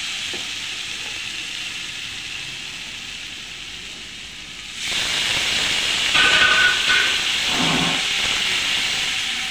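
Masala sizzling in a hot nonstick frying pan, fading slowly. About five seconds in, a sudden louder steamy hiss as a little water hits the hot pan, with a wooden spatula stirring through it.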